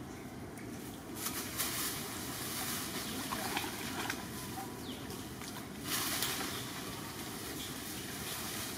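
Leaves and thin branches rustling in bursts, with a few light snaps, about a second in and again around six seconds in, as macaques climb through a small tree.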